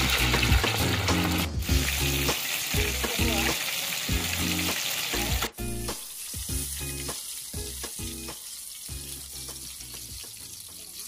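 Masala-coated fish deep-frying in hot oil, a dense, busy sizzle. About halfway through it drops to a quieter, softer sizzle.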